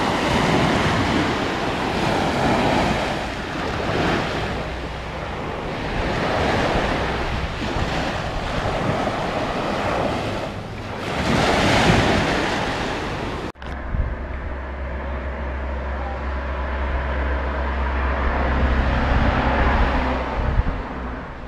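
Waves breaking on the shore, surging every few seconds, with wind buffeting the microphone. About 13 seconds in the sound cuts abruptly to a steady low rumble and hiss that slowly grows louder and then eases near the end.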